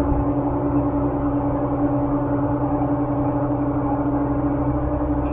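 Excavator's diesel engine running steadily, heard from inside the operator's cab as an even drone with a strong steady hum.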